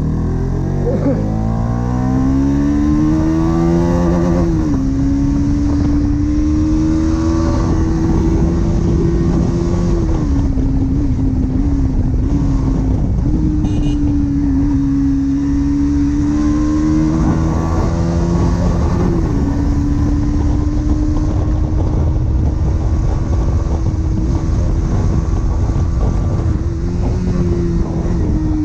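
Bajaj Pulsar NS200 single-cylinder engine with its stock exhaust, heard while riding. The revs climb for about four seconds and drop at a gear change, then hold fairly steady at cruising speed with brief dips at later shifts, over a steady low rumble.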